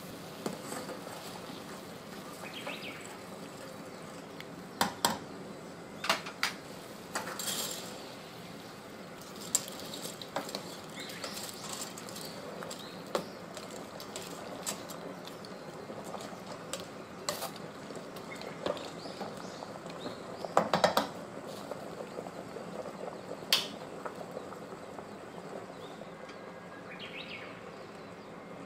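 Water at a rolling boil in a stainless steel pot, a steady bubbling hiss. Over it come scattered sharp metallic clinks and taps as spaghetti is put in and worked around with tongs against the pot. The loudest run of clinks comes about two-thirds of the way through.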